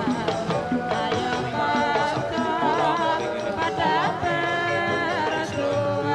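Music with a singer's wavering, ornamented melody over a steady percussion accompaniment.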